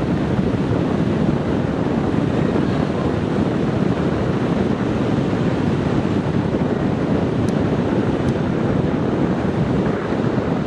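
Steady rush of wind on the microphone mixed with ocean surf, with two faint ticks a little under a second apart about three-quarters of the way in.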